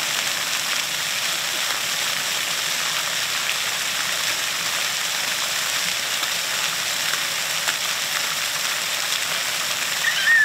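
Splash-pad fountain jets spraying and falling onto wet pavement: a steady hiss of running water. Near the end a short high squeal cuts through it.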